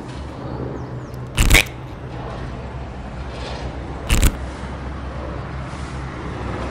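Two short, sharp cartoon sound-effect swishes, one about a second and a half in and one about four seconds in. Under them runs a steady low background hum.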